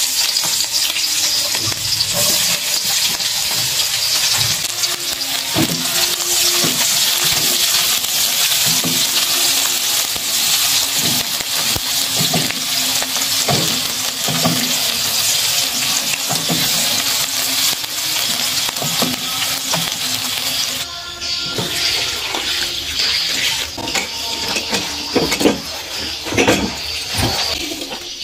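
Sliced shallots, garlic and red chili sizzling in hot oil in a wok, stirred with a spatula, with occasional scrapes and knocks on the pan. About 21 s in the sound changes to water running and splashing as water spinach is rinsed in a plastic bowl.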